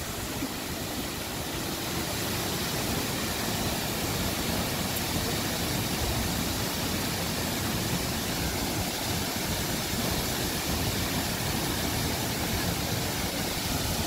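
Steady rushing of a tall waterfall plunging into a pool.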